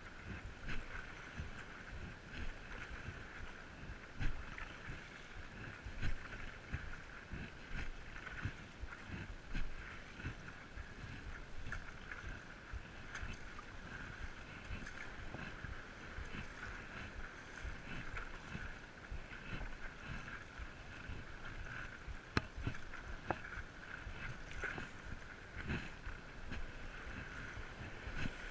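Stand-up paddleboard paddling: the paddle dipping and pulling through seawater with water sloshing around the board, and wind buffeting the chest-mounted microphone in irregular low thumps.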